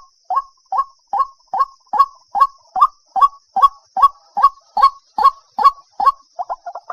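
White-breasted waterhen (dahuk) calling: a steady series of short, repeated notes, about two and a half a second, which breaks into a faster, tangled run of notes near the end.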